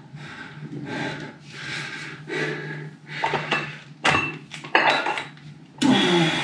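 A plate-loaded metal dumbbell clanks against the floor about four seconds in, with a couple of sharp metallic clacks. Hard breathing from the exercise comes in swells about once a second.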